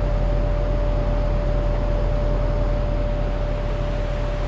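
Vehicle engine running steadily with a low rumble, a constant high-pitched whine over it.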